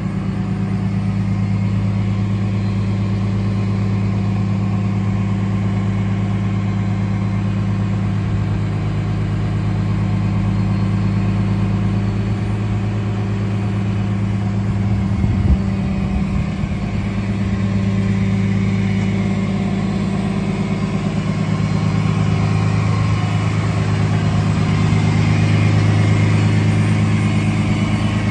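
Freightliner M2 tow truck's engine idling steadily, with one short knock about halfway through.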